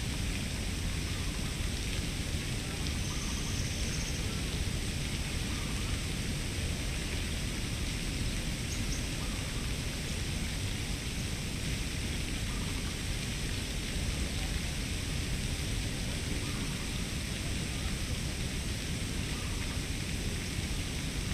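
Steady outdoor ambience: an even hiss over a low rumble, with a faint short high tone about three seconds in.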